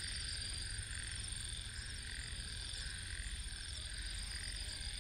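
Faint evening chorus of calling night creatures: a steady high chirring with a softer call pulsing about once a second, over a low rumble.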